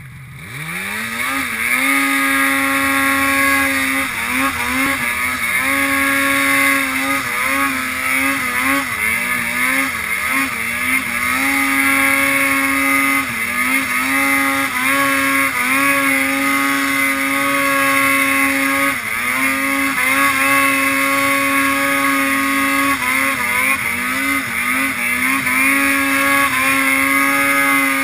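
Arctic Cat ProClimb snowmobile engine working hard in deep powder: the revs climb quickly at the start, then are held high with frequent short dips and recoveries as the throttle is worked.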